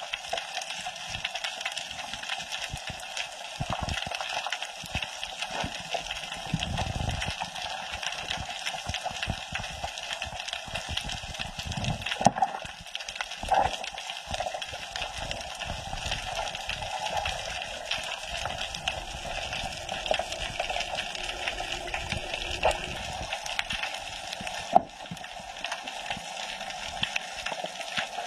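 Underwater reef ambience heard through an underwater camera housing: a steady, muffled wash full of fine crackling clicks. Two louder knocks come about 12 and 25 seconds in.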